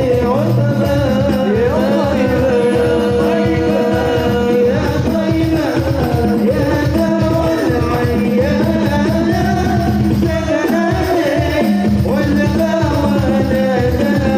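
Music: a voice singing a melodic line with long held notes over a steady drum beat.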